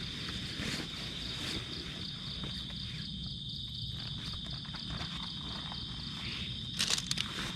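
Night insects, likely crickets, trilling steadily in a continuous high chorus, over a low rumble. A cluster of sharp clicks or knocks comes near the end.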